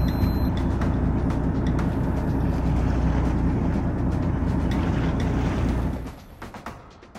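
A steady low rumble that cuts in sharply and drops away suddenly about six seconds in.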